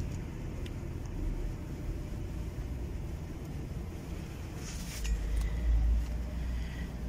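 Steady low rumble of background noise, heavier in the bass about five seconds in, with a faint high tone coming in over the last couple of seconds.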